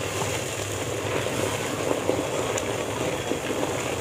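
Roasted semolina hissing and bubbling in a steel pan with water just added, while a wooden spoon stirs it steadily.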